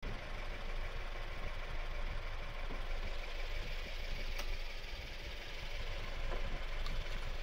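A steady low rumble with a faint, even hum above it, as from a machine running without pause; a small click about four and a half seconds in.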